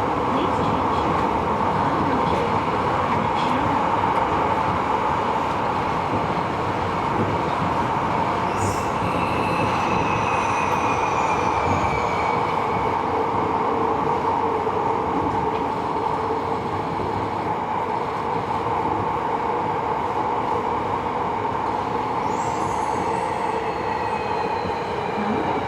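Running noise inside a Tobu 70000 series subway car on the move, a steady rumble of wheels on rail. Faint high whines slide downward in pitch a third of the way in and again near the end.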